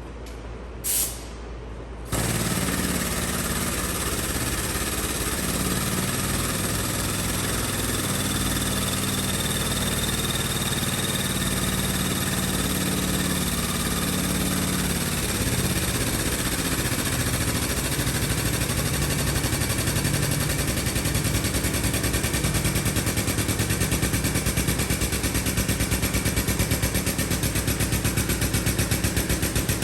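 An engine starts running abruptly about two seconds in and keeps running steadily, with a regular pulsing toward the end.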